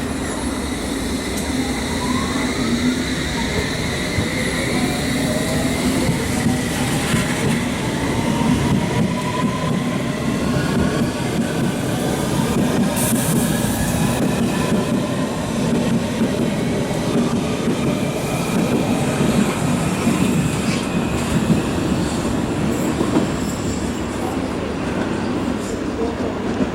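A train running at a station platform: steady rumble and running noise, with high squealing from the wheels and a whine that rises in pitch over the first dozen seconds or so.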